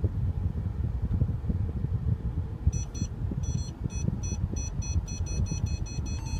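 Parking-sensor warning beeps in the cabin of a 2014 Mercedes-Benz SL550 as it reverses into a parallel spot. They start about two and a half seconds in and come faster and faster, the sign that the car is closing on the obstacle behind. A low steady rumble of the car lies underneath.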